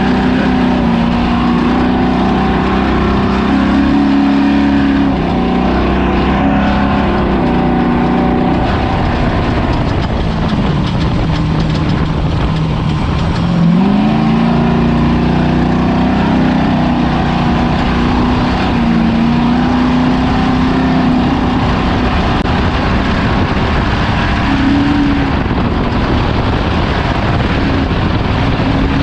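Engine of a Ford Ranger desert race truck running hard over rough ground, with steady road and wind roar. About halfway through the engine pitch drops sharply, then rises again as it pulls back up to speed.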